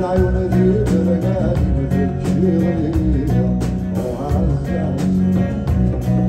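Live band performance: a man singing over strummed acoustic guitar, electric bass and drum kit, with the voice most prominent in the first three seconds or so.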